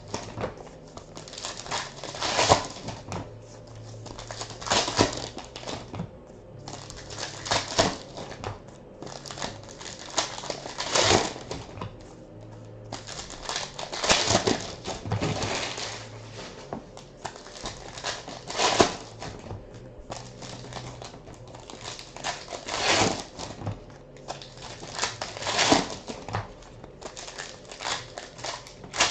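Trading card pack wrappers being torn open and the cards pulled out, one pack after another. It comes as loud crinkling tears every few seconds with softer rustling in between.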